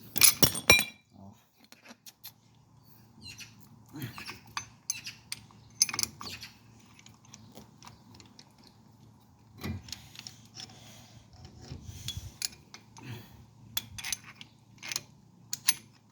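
Brake caliper piston wind-back tool being fitted and turned against the caliper piston: a sharp metal clank near the start, then scattered metal clicks and clinks.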